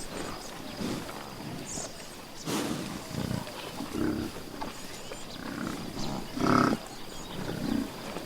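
A large wild animal giving a series of short, low calls, about one a second, the loudest about six and a half seconds in.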